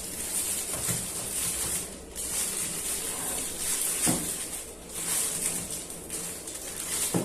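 Plastic packaging and a cardboard box rustling and crinkling in several waves as an action figure is handled and taken out of its box, with a couple of light knocks.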